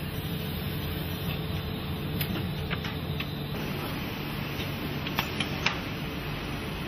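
Automated ball-panel production machinery running with a steady hum and hiss, and a few sharp clicks about two to three seconds in and again about five seconds in.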